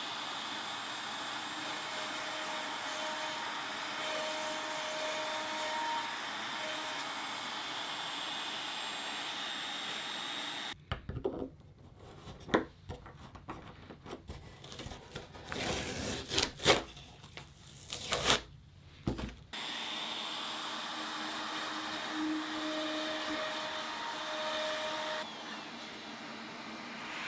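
Compact trim router running as it routes a leash-plug hole in a foam board through a plastic template, with a shop vacuum drawing dust through a hose on the router: a steady whir with a few held tones. It stops about eleven seconds in, giving way to several seconds of clicks and knocks from handling the template, then runs again from about twenty seconds in.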